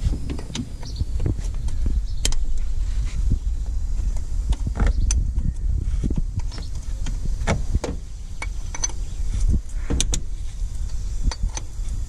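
A socket wrench working the lower mounting bolt of a car's air-conditioning compressor: irregular metallic clicks and knocks of tool on metal, over a continuous low rumble.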